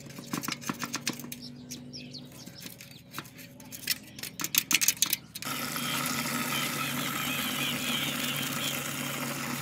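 Small metal tool scraping and clicking against a rusty bicycle hub, the scrapes louder about four to five seconds in. A little past halfway it cuts to water running steadily from a tap into a tub.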